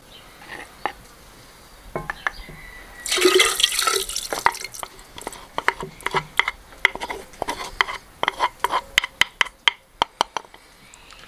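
Metal spoon stirring and clinking in a clay bowl of garlic-spiced water. About three seconds in the liquid is poured into a large earthenware pot, then many sharp clinks follow as the spoon scrapes the bowl out into the pot.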